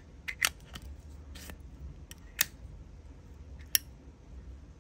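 Scattered sharp metallic clicks of Zippo lighters being handled: about six short clicks spread irregularly, the clearest about half a second, two and a half and nearly four seconds in.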